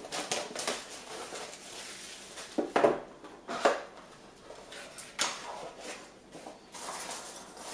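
A sealed cardboard box being opened by hand: cardboard scraping, crackling and tearing as the lid and flaps are pulled open, with a few sharp knocks about three and five seconds in.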